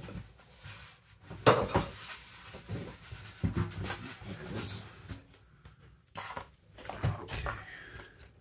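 Rummaging and handling of small tools and a solder spool on a wooden workbench: irregular clattering and knocks, the loudest about a second and a half in.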